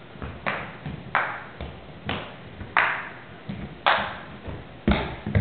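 A ping-pong ball hit back and forth with large paddles and bouncing on a wooden floor: a rally of sharp pops about once a second, each with a short ring.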